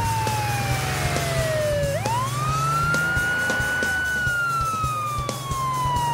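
Police car siren in a slow wail: one tone falls gradually, sweeps back up about two seconds in, holds briefly, then slowly falls again.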